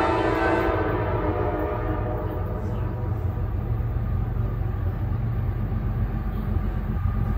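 Diesel freight locomotive's air horn sounding a chord, cutting off under a second in, then the lead locomotives' diesel engines running steadily as the train approaches.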